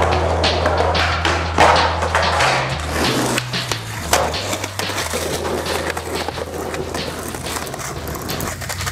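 Backing music: a beat with a deep bassline that steps to a new note every second or so, over sharp percussive hits.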